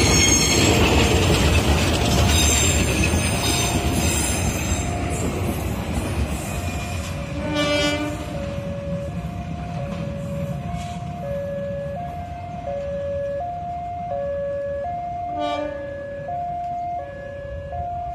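CC 201 diesel-electric locomotive hauling a rescue crane train, passing close with engine rumble and wheel squeal, then fading as it pulls away. Two short horn blasts sound about 8 and 15 seconds in. A level-crossing warning alarm alternates steadily between two tones.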